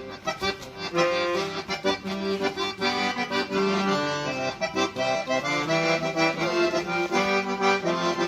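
Accordion playing a lively instrumental passage of gaúcho folk music, a quick melody of many short notes over steady chords.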